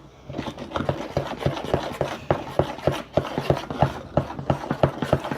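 Slime mixture being stirred and worked by hand: quick scraping, sticky strokes, about four a second.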